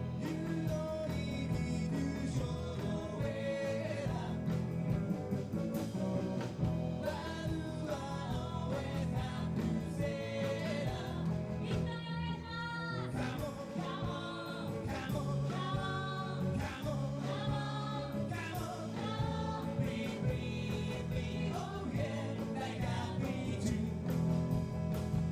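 Live band performing a song, with a lead singer over the instrumental accompaniment.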